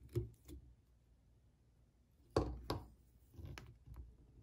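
Light clicks and taps of fingers, thread and bobbin handled at a fly-tying vise during a whip finish: a few faint ones at first, then two sharper clicks about two and a half seconds in, then a few softer ones.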